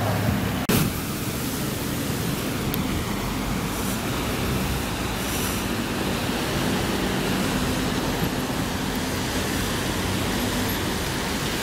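Steady street traffic on a wet road: a constant hiss of tyres on wet tarmac with vehicle engines running underneath. A brief knock a little under a second in.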